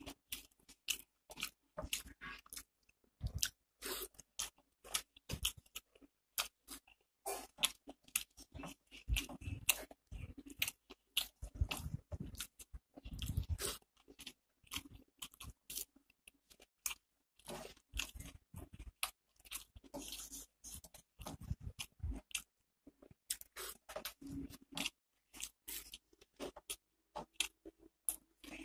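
Close-up chewing and crunching of rice, dal and fried onion pakora, with many sharp, irregular mouth smacks and clicks, and the wet squish of fingers mixing rice into dal on a steel plate.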